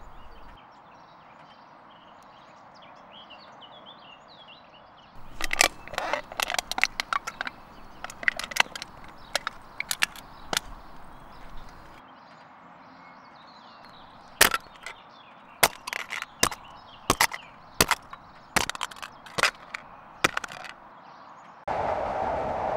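Birds chirping faintly over quiet outdoor ambience, then a long run of sharp, irregular cracks and clicks, some loud and some rapid. About a second before the end a steady rushing noise of a moving train starts abruptly.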